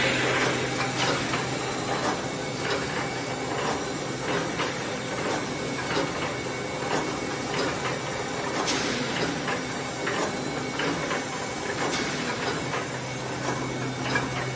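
Welded wire mesh welding machine running, making stainless steel wire mesh: a steady low hum under a busy clatter of short mechanical knocks, roughly two a second, as the machine cycles.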